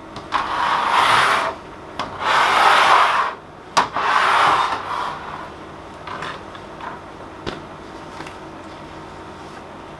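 A cloth wiped firmly across a picture frame's acrylic sheet in three long strokes of about a second each, then a few light clicks.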